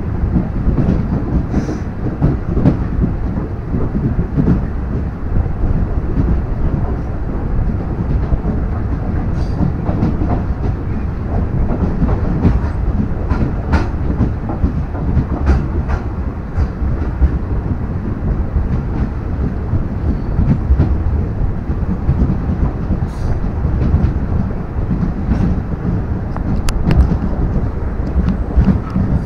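Train running along the rails, heard from a coach's open doorway: a steady low rumble of wheels on track with scattered clicks and rattles.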